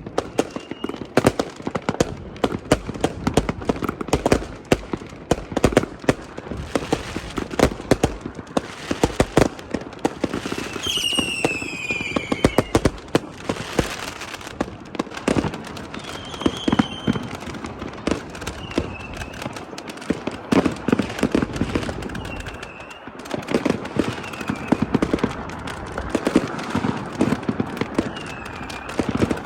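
Many fireworks and firecrackers going off at once: a dense, unbroken crackle of bangs, near and far. About eleven seconds in, a whistle falls in pitch, and a few short high whistles sound here and there.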